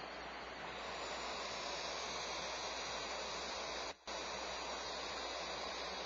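Barn owl nestlings making their steady defensive hiss, a continuous breathy noise, with the sound cutting out for a split second about four seconds in.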